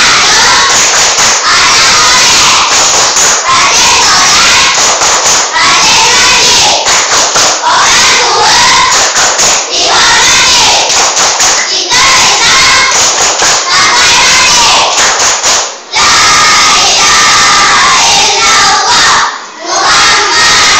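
A classroom of children shouting a clapping chant together in unison, loud and continuous, with two brief pauses near the end.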